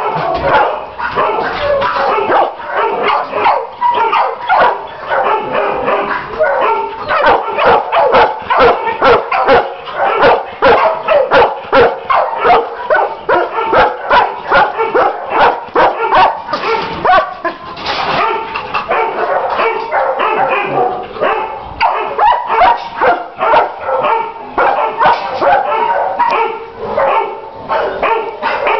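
Many kennelled shelter dogs barking at once: a continuous din of overlapping barks with no pause.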